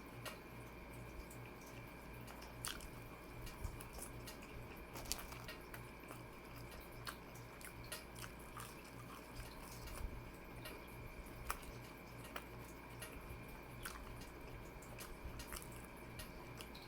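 Close-up chewing of a meatball marinara sub: soft wet mouth clicks and squishes, irregular and many, over a faint steady low hum.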